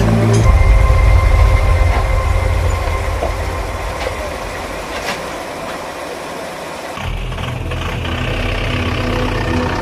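Heavy diesel engine of an old tracked excavator running, loudest at first and gradually easing off. About seven seconds in, the sound changes abruptly to another engine idling steadily.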